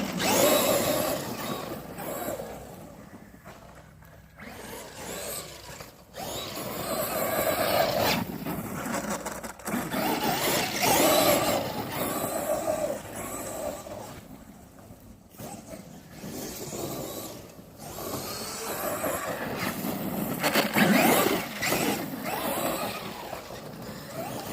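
Traxxas Maxx RC monster truck driving in several runs, its electric motor and drivetrain whining as it speeds up and backs off, the sound rising and fading again and again.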